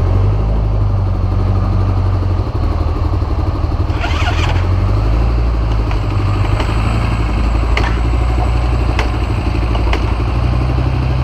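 Yamaha dirt bike's single-cylinder engine running steadily just after a hard cold start, warming up. A brief sharper noise cuts in about four seconds in.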